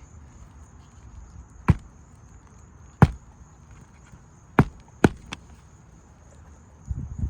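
Hammer striking roofing nails into an asphalt shingle: four sharp strikes spaced a second or more apart, then a quieter knock and a short scuffle near the end.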